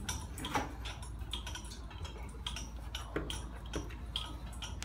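Hand tools clicking and tapping on metal on an engine block, in irregular small clicks over a steady low hum.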